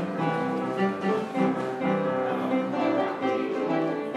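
Instrumental background music playing over the closing credits.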